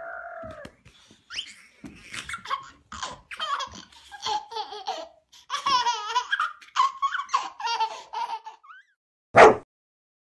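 Nine-month-old baby giggling and laughing in many short bursts while a Boxer dog tickles his tummy with its nose. A brief loud burst near the end.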